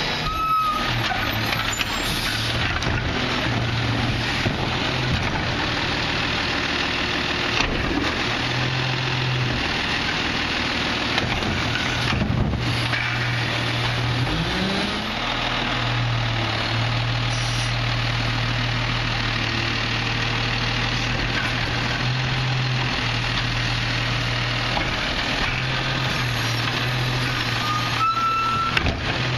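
Diesel engine of a Peterbilt 320 garbage truck with a McNeilus Autoreach side-loader, running steadily at the curb. The engine note rises briefly about halfway through, and a couple of sharp clanks come from the truck's equipment.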